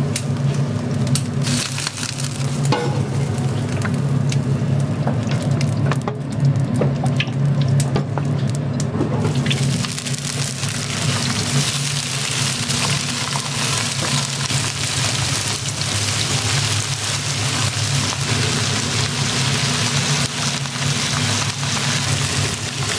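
Pork sizzling on a hot grill, with scattered clicks; the sizzle grows much louder about nine seconds in. A steady low hum runs underneath.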